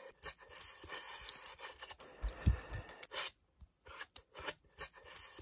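Long fingernails tapping and clicking close to the microphone in a quick, irregular run of sharp clicks, with a short pause a little after three seconds in. There is a low thump about two and a half seconds in.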